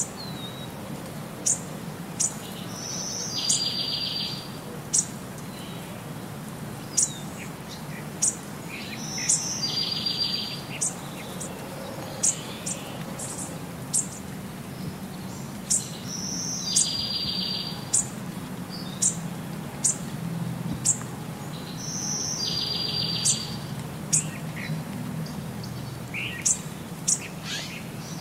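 Birds chirping: short high chirps scattered throughout, with a buzzy call that recurs about every six to seven seconds, over a low steady hum.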